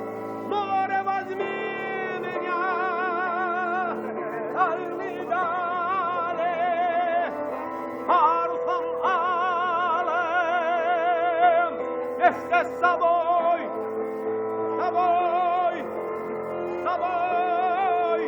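Music with a singing voice, sung with strong vibrato and long held notes over sustained accompaniment.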